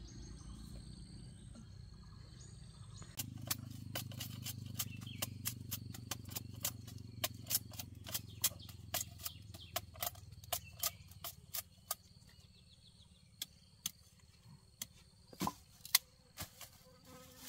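A rapid run of sharp cracks or snaps, about three or four a second, over a low steady hum. After about twelve seconds it thins to a few scattered snaps, with one loud crack near the end.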